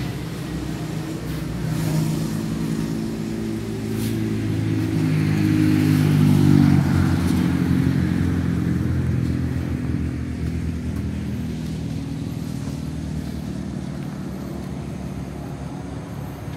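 Engine of a Toyota Yaris hatchback running at idle, a steady low drone that swells in the middle and then slowly fades.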